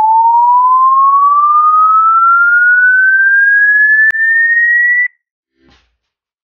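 A single pure, whistle-like tone rising slowly and steadily in pitch, then cutting off suddenly about five seconds in, with a faint click just before.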